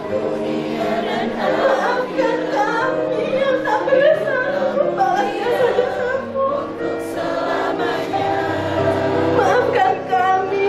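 Mixed choir of men's and women's voices singing together, with long held notes.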